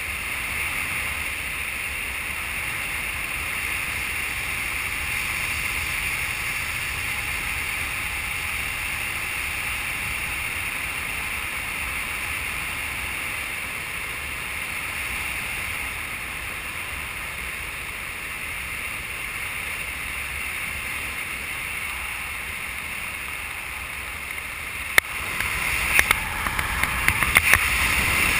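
Steady wind rushing over a skydiver's helmet camera during a parachute descent, a hiss with a low rumble beneath it. Near the end it grows louder, with a few sharp clicks.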